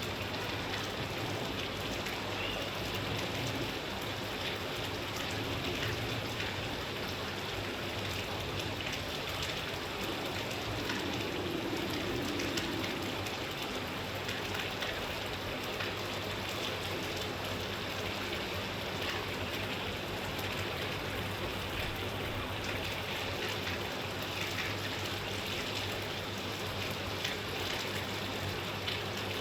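Steady rain falling: an even hiss dotted with many small drop impacts.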